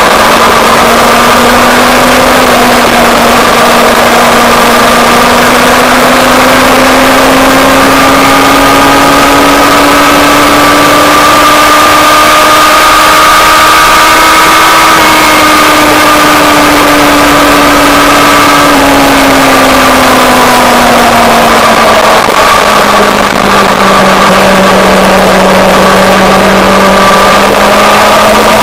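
Motorcycle engine running at a steady cruise under a constant rush of wind. Its pitch rises slowly over the first half, holds, drops over a few seconds about two-thirds of the way through, then climbs again near the end.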